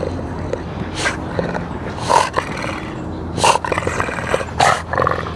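Dog growling low and steadily in play, with five short sharp noises spaced about a second apart.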